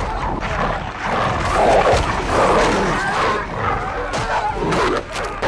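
Film soundtrack of wolves growling and snarling, dense and loud, mixed with other effects and possibly score underneath.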